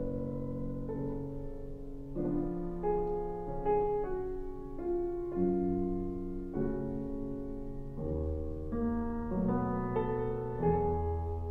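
Solo piano music, slow, with held notes and chords changing every second or so over sustained bass notes.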